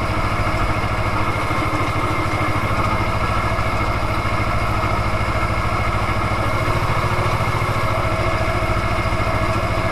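Ursus C-330M tractor's two-cylinder diesel engine running steadily at working speed while pulling a straw turner, heard from inside the cab, with a faint steady high whine.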